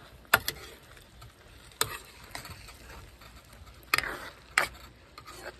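Metal spoon clinking and scraping against another utensil and the bowl while mixing food, with a few sharp clinks spread across the moment and softer scraping between them.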